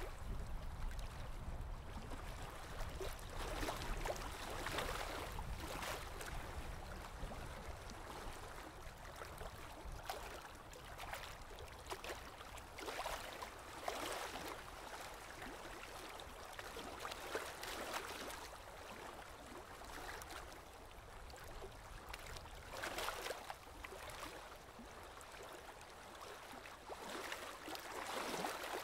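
Running water in a goldfish aquarium gurgling and splashing unevenly, with a low rumble underneath.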